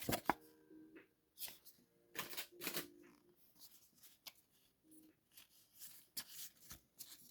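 Pokémon trading cards being flipped and slid through by hand: a string of short, soft swishes and taps.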